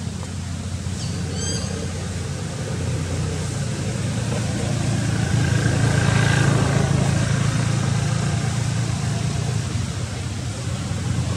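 A vehicle engine running as a low rumble that grows louder to a peak about halfway through, then eases off.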